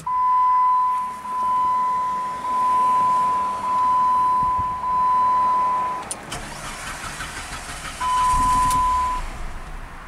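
Dashboard warning chime in a 2005 Chrysler PT Cruiser sounding as a steady tone in five long pulses. Then the starter cranks the 2.4-litre turbo engine, which catches about eight seconds in as the chime sounds once more.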